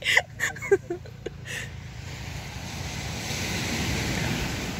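Rushing seaside surf and wind noise, swelling to its loudest about four seconds in and then easing, after a brief voice at the start.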